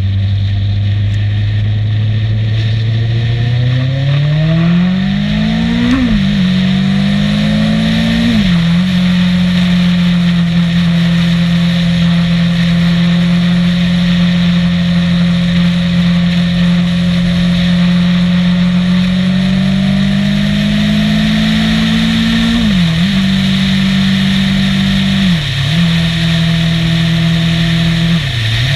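Motorcycle engine heard from a camera on the bike, pulling harder with rising pitch and shifting up twice in quick succession, then cruising at a steady pitch. Near the end it climbs again and makes three more gear changes, each a sudden dip and recovery in pitch, over a steady rush of wind and road noise.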